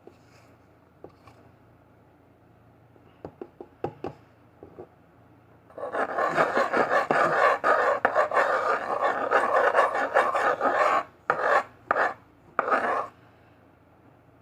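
Scraping and rubbing on a tabletop as glue and metallic powder are mixed into slime. The scraping runs densely from about six seconds in and breaks into a few short strokes near the end, after some light clicks at the start.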